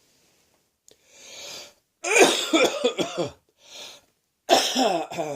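A person with a heavy cold and sore throat coughing in harsh fits. A drawn breath comes first, then a run of several coughs. Another breath follows, and a second run of coughs starts near the end.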